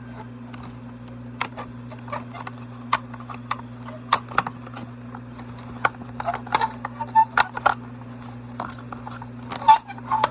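Irregular light clicks and knocks of the plastic parts of an animated Santa figure being handled and pried while it is taken apart, over a steady low hum.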